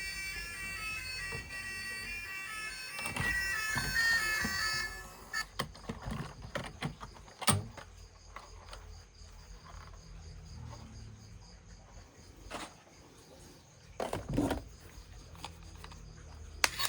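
A short electronic melody in stepped notes plays for about five seconds and stops. Then come scattered clicks and knocks of plastic toys being handled, with a sharp click about halfway through and a couple of louder thumps near the end.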